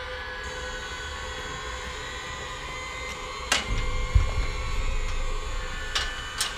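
Metal gate latch being worked by hand: a sharp metallic clack about halfway through, a low thump just after, and a couple of clicks near the end, over a steady droning tone.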